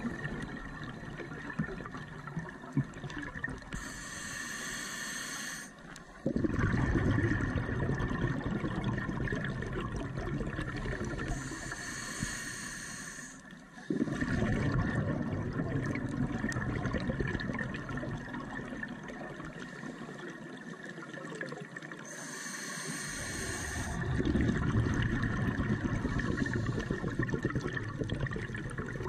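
Scuba diver's regulator breathing heard underwater through a camera's waterproof housing: a hissing inhale about every eight to ten seconds, three times, each followed by a long, rushing rumble of exhaled bubbles that starts suddenly.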